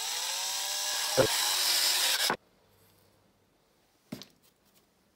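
Electric drill whirring as its bit bores through the thin plastic housing of a soap dispenser, its pitch dipping slightly as the bit bites, then stopping abruptly a little over two seconds in. A single light knock follows near the end.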